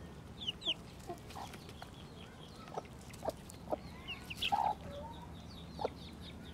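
Chickens clucking in short, scattered calls, the loudest about four and a half seconds in, over many quick high chirps of small birds.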